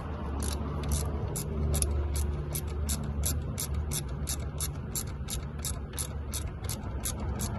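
Small hand ratchet clicking steadily, about four clicks a second, as bolts are run down.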